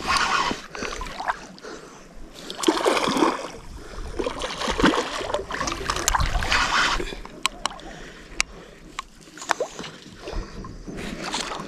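Close handling noise of a spinning reel: fingers rub and work the reel's metal folding handle, in rough scraping bursts. A few short sharp clicks follow in the second half.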